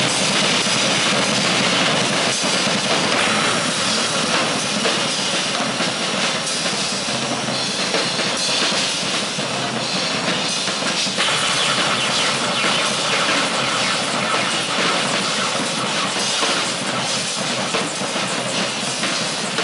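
Live harsh noise music: a loud, continuous wall of dense, clattering electronic noise spread across the whole range from low to high.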